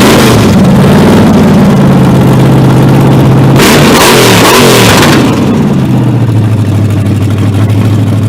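Chevrolet Impala's big-block V8 running loud at a fast idle. Its throttle is blipped twice about four seconds in, each rev rising and falling quickly, then it settles to a lower, steady idle.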